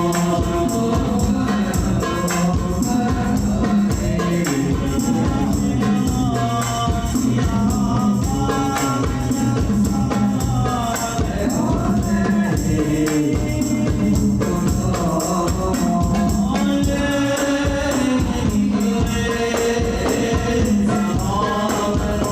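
Shalawat group singing a devotional song together to the dense, steady beat of frame drums with jingles, rebana-style hand percussion.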